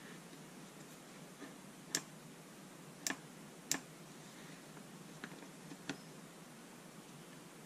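A boxwood-and-brass folding rule being folded shut: a handful of sharp, unevenly spaced clicks as its brass joints and steel alignment pins snap into place. The loudest click comes about two seconds in.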